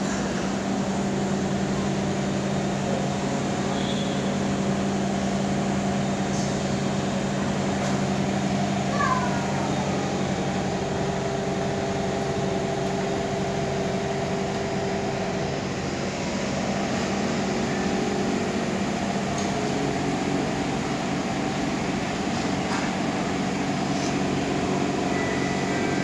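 Inside a Kawasaki C151 metro train: a steady hum and rumble from the train's running equipment, with a few humming tones that come and go. A brief squeal glides in pitch about nine seconds in.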